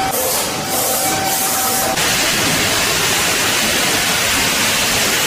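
Factory floor machinery running: a steady whine for about two seconds, then a loud, even hiss.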